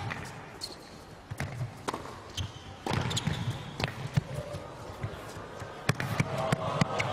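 Tennis rally: a string of sharp racket strikes on the ball and ball bounces on the hard court at an irregular pace. Crowd noise starts to rise near the end.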